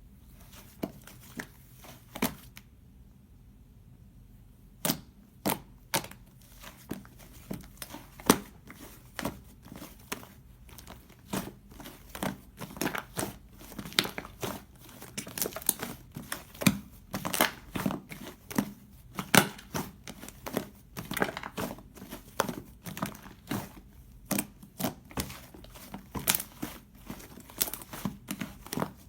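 Cloud slime being stretched, squished and pulled apart by hand, giving off irregular crinkly crackles and small tearing pops. There is a short lull a few seconds in, and the crackles come thicker from the middle on.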